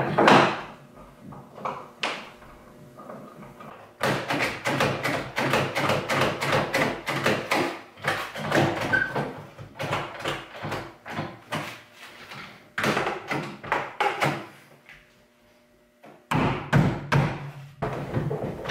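Bessey one-handed quick clamps being worked on a plywood bench vise: a sharp wooden knock, then long runs of rapid clicking and knocking as the clamp triggers are pumped and the vise jaw closes on a 2x4, with a short pause near the end.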